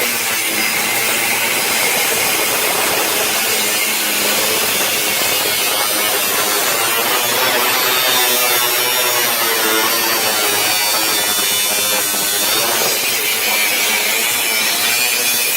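Angle grinder with a cut-off wheel cutting, a loud steady grinding with a harsh high hiss that runs unbroken throughout.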